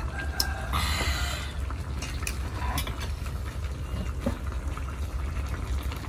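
Rice liquor poured from a plastic jug into a small glass: a short splashing trickle about a second in. A steady low rumble and a few light clicks of spoons and chopsticks on bowls sound beneath it.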